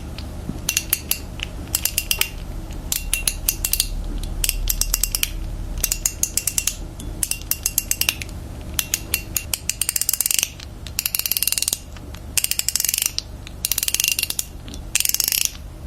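Bpmods Crystal fidget slider being slid back and forth, clicking sharply in quick runs. About two-thirds of the way in, longer sliding rasps come between the click runs.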